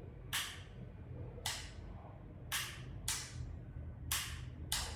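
A switch clicking sharply, about six times, several of the clicks in quick off-on pairs, cycling the power to step an RGB LED pool light to its next colour. A faint steady low hum runs underneath.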